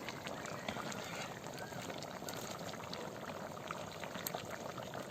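Chicken curry bubbling in the pan: a steady hiss dotted with small pops.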